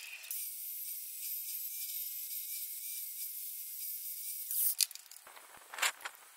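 Aerosol can of high-temperature spray paint spraying a steady hiss for about four seconds, then cutting off, followed by a few sharp clicks.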